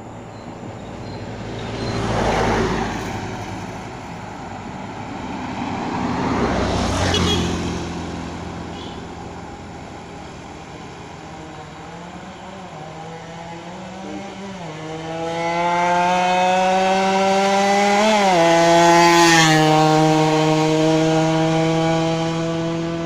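Yamaha RX-King two-stroke single-cylinder motorcycle engine running hard under load. Two loud swells come in the first eight seconds. From about twelve seconds a steady high engine note builds and is loudest around nineteen seconds, dropping in pitch twice along the way.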